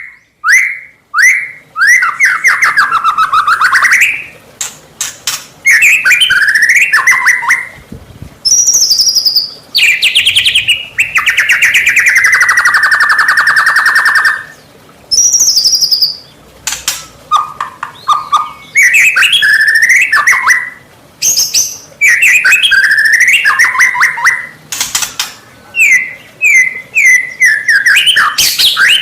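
White-rumped shama in loud, vigorous full song: a run of short whistled phrases, quick chattering trills and high whistles, with a long harsh churring rattle near the middle.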